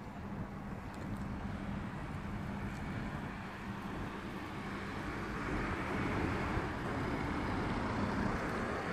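A vehicle engine running steadily off-camera, growing louder from about five seconds in.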